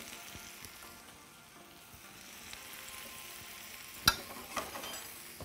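Chopped vegetables frying in a hot sauté pan, a gentle steady sizzle. A sharp knock about four seconds in, with a softer one just after.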